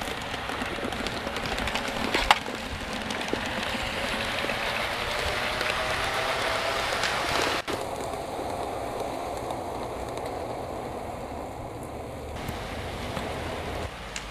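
G scale model diesel locomotive running along garden railway track, pushing a snow plow: a faint motor whine that slowly rises and then falls in pitch over a steady hiss, with a few sharp clicks about two seconds in. The sound changes abruptly about halfway through, with much of the high hiss dropping away.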